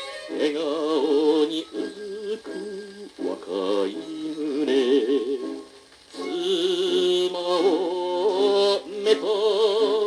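A 1959 Japanese popular-song (kayōkyoku) record playing on a turntable: a man sings with a wide vibrato over instrumental backing, with a short break between phrases about six seconds in.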